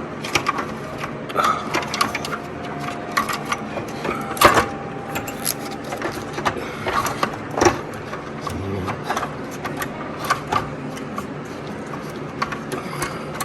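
Irregular clicks, knocks and rattles of parts being handled and fitted inside a window air conditioner during reassembly, with two louder knocks about four and a half and seven and a half seconds in.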